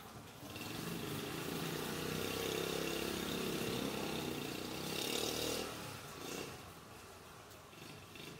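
A motor vehicle passing close by, its engine growing loud about half a second in and fading away after about six seconds.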